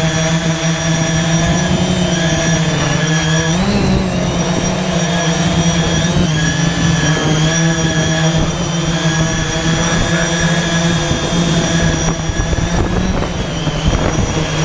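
Y6 multirotor drone's six brushless motors and propellers humming steadily in flight, with a brief rise in pitch about four seconds in as the throttle changes.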